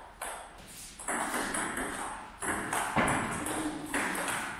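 Table tennis ball clicking: a few sharp, separate hits spread over several seconds, each with a short echo behind it.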